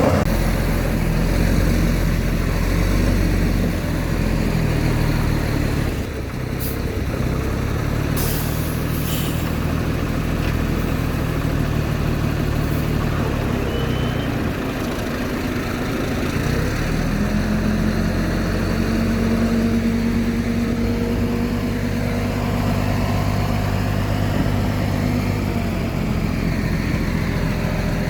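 Heavy diesel earthmoving machinery running steadily, its engine note shifting and rising a little over halfway through, with a few short clicks about a quarter of the way in.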